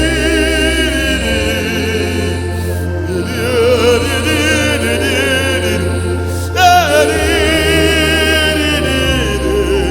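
Gospel worship music: long held sung notes with vibrato and slow glides, over a steady low bass.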